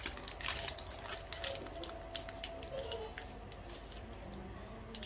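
Baking-parchment cupcake liner crinkling as it is peeled off a baked cupcake by hand: quick crackles, thick in the first two seconds, then sparse and fading.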